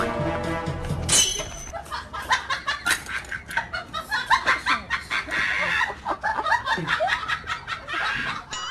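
A person laughing in quick, repeated bursts.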